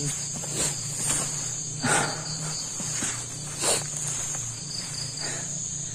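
Night chorus of crickets and other insects, a steady high shrill trill, with a few brief soft noises about two seconds and nearly four seconds in.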